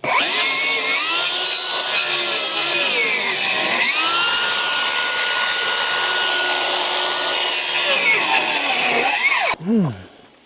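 Circular saw cutting through lumber: the motor's whine sags under load and recovers. Near the end the cut finishes and the saw winds down with a falling pitch.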